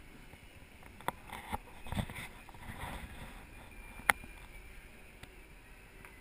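Segway rolling along a city street with a low steady running noise. The handlebar-mounted camera rattles and knocks, with a few sharp clicks; the loudest is a single click about four seconds in.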